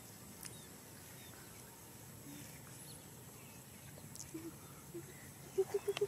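Quiet outdoor background, then a couple of short low calls and, near the end, a quick run of short repeated low animal calls, several a second.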